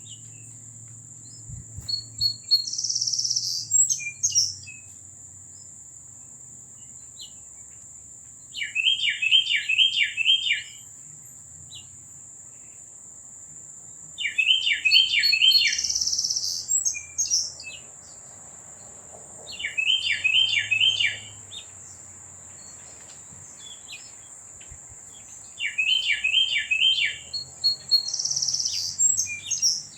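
A songbird singing the same short phrase of quick down-slurred notes about every six seconds, five times, over a steady high-pitched whine.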